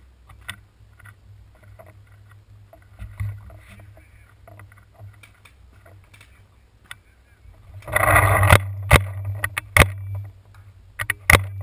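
Footsteps crunching over dry leaves and twigs, faint, under a low steady rumble from the gun-mounted camera. About eight seconds in there is a loud scraping rustle, then several sharp, very loud pops about a second apart, typical of a paintball marker firing right at the camera.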